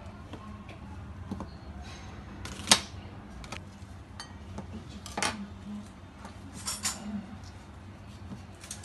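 Kitchen knife slicing a red onion directly on a marble countertop: a handful of sharp clicks as the blade strikes the stone, the loudest about three seconds in, over a faint steady hum.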